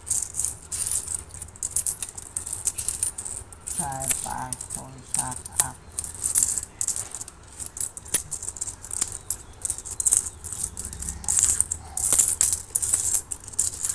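Loose metal coins clinking and scraping against each other and a hard floor as they are handled and sorted by hand: many light, irregular clinks.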